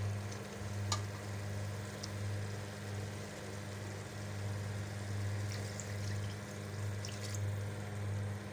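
Minced-meat masala with tomatoes sizzling in a steel cooking pot, with a single metal spoon clink about a second in and a steady low hum underneath.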